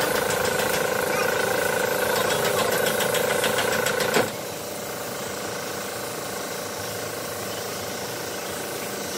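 Compressed-air paint spray gun at work over a running machine: a steady engine-like hum with rapid knocking that cuts off abruptly about four seconds in, leaving a steadier, quieter hiss of the spray.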